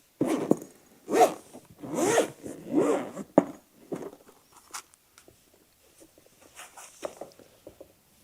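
Zipper on a goggle case being pulled in about four quick strokes, followed by quieter handling and rustling of the packaging.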